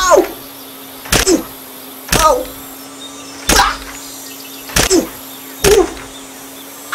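A steady low buzz, with a sharp knock repeating about once a second. Each knock is followed by a short sound falling in pitch.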